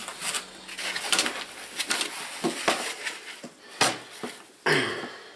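White foam packing pieces rubbing and scraping as they are pulled off the ends of an aluminium carry case, with scattered small knocks and rustles and a louder scrape near the end.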